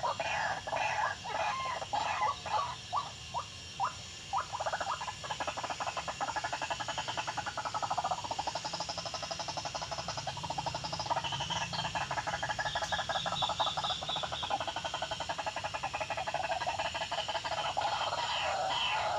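White-breasted waterhen calling: a loud, croaking 'ruak-ruak' series whose notes come faster and faster, then run together into a fast continuous chatter.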